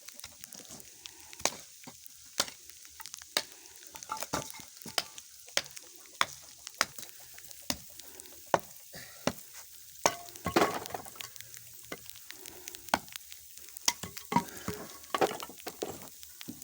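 Lumber being split into kindling with a hatchet: a run of sharp chopping strikes about once a second, with a quicker flurry of cracks around two-thirds of the way through.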